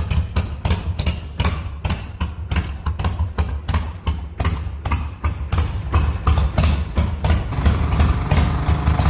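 Motorcycle engine idling through an exhaust fitted with a VW Beetle muffler: a deep, uneven beat with sharp exhaust pulses about three times a second.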